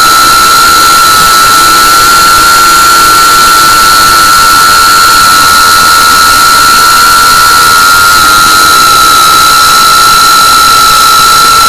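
Loud, steady high-pitched whine of the four brushless motors and propellers of a GEPRC Cinelog35 3.5-inch FPV drone on a 6S battery, held at an even cruising throttle over a rushing hiss of air.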